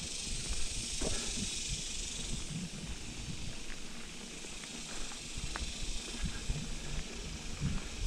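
Mountain bike rolling slowly along a dirt trail: low tyre rumble with a few light clicks and rattles, under a steady high hiss.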